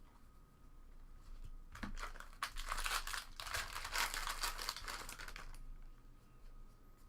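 Foil trading-card pack wrapper crinkling and crackling as it is handled and torn, starting about two seconds in and lasting about three and a half seconds.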